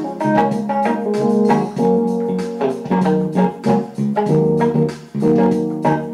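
Instrumental background music with sustained chords and notes that change every half second or so.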